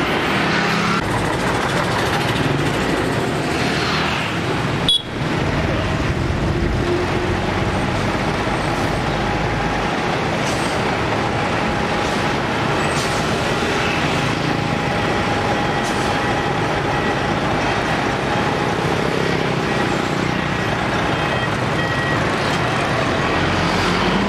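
Busy road traffic, with container-hauling semi-trucks and motorbikes passing, their engines running and tyres on the road, making a steady din. There is a brief break about five seconds in.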